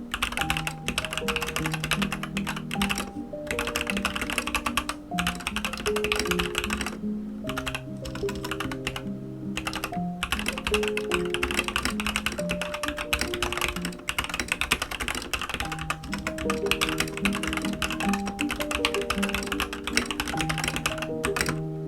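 Rapid typing on an Aigo A100 mechanical keyboard with yellow switches: a dense run of key clicks with a few brief pauses, over background music.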